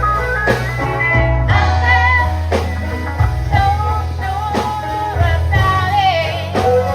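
Live gospel band playing: strong bass and drums on a steady beat of about one hit a second, with a bending melody line above.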